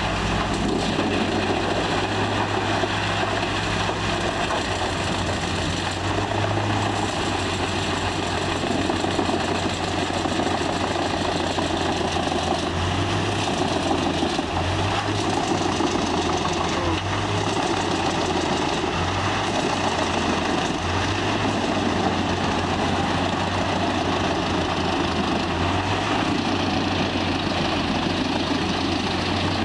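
Large truck-mounted wood chipper running steadily under load as whole logs are fed into it: a heavy engine hum that dips and rises a little as the logs go in, under the continuous grinding noise of the chipping.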